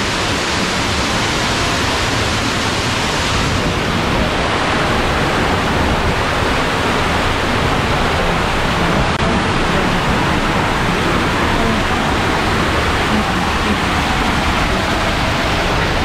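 Waterfall water rushing steadily over rocks, a dense continuous wash of noise.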